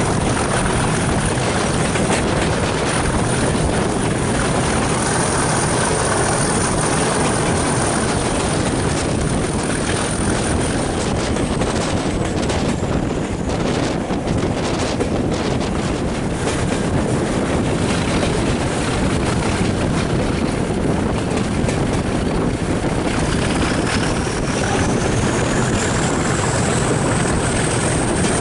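Class 37 diesel locomotive 37714 working hard under load, its English Electric V12 engine running with a steady drone and rush of wind and rail noise, heard from an open coach window. A high turbocharger whistle falls away about halfway through and rises again near the end.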